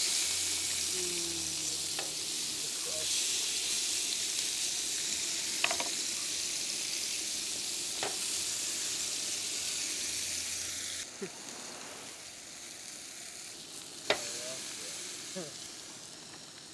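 Beef steaks sizzling steadily as they sear on a hot griddle over a propane camp stove. A few sharp clicks sound over the sizzle, which grows quieter about two-thirds of the way through.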